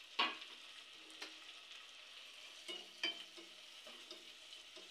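Chopped tomatoes and onions sizzling faintly in ghee and oil in a pan. A spatula stirs them, knocking and scraping against the pan about five times, the loudest just after the start.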